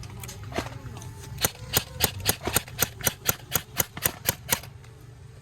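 Airsoft gun firing a steady string of about a dozen shots, about four a second, starting about a second and a half in and stopping near the end.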